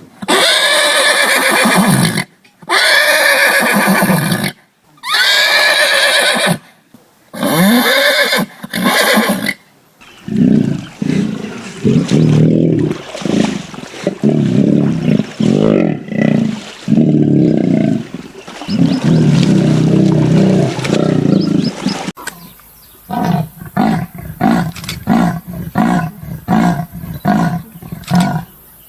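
Horse whinnying five times in high, falling calls, then a lion roaring in long deep calls that break into a quick series of short grunts, about two a second, toward the end.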